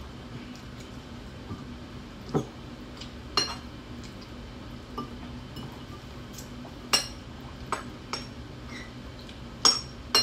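Metal spoon and fork clinking against ceramic bowls while eating: scattered sharp clinks, a handful over the stretch, the loudest about seven and ten seconds in.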